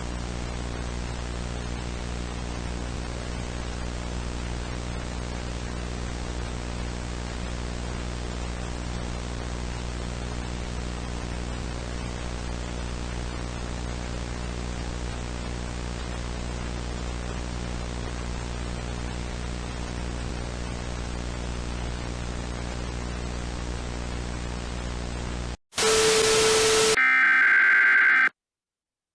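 Steady static hiss with a low hum underneath. Near the end it cuts off and a loud burst of noise gives way to the screeching two-tone data bursts of an Emergency Alert System header.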